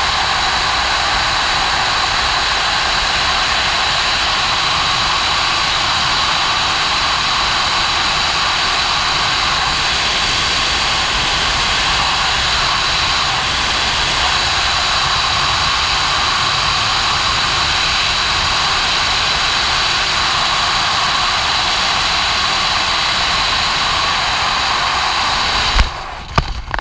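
Loud, steady rush of freefall airflow over a BASE jumper in a pressurized tracking suit, blasting the helmet camera's microphone, with a faint steady high whistle in it. Near the end comes a sharp thump and the rush drops away suddenly, as the parachute opens.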